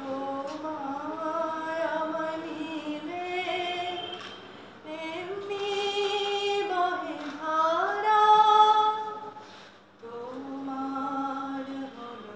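A woman singing solo without accompaniment, in long held notes. Three phrases; the second climbs to the loudest, highest note about eight seconds in.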